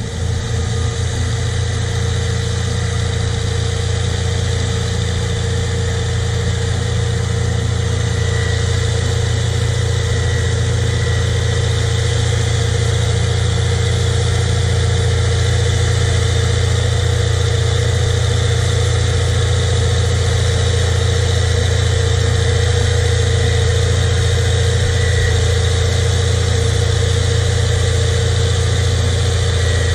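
Caterpillar D7R crawler dozer's diesel engine running under load as it pushes a heap of mud, a deep steady drone with a faint high whine above it.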